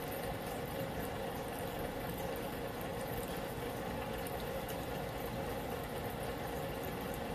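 Steady mechanical drone, engine-like, with a faint steady tone running through it.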